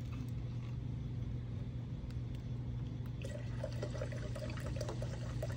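Seltzer water poured from a plastic bottle into a glass beaker, the pour starting about three seconds in, over a steady low hum.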